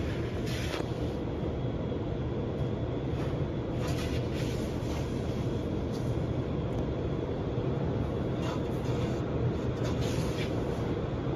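Automatic tunnel car wash heard from inside the car's cabin: a steady low rumble, with louder swishes now and then as water spray and soapy cloth strips hit the windshield.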